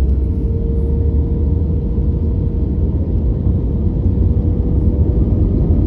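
Airplane noise: a steady, loud low rumble with a constant drone above it.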